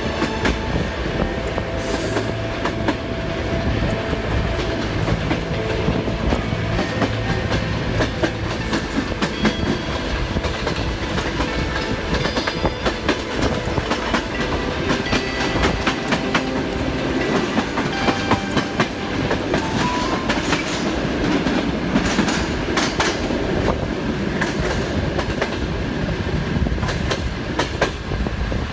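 Passenger train running, heard from an open carriage window: the steady rush of the moving train with the wheels clattering over rail joints and points in frequent irregular clicks.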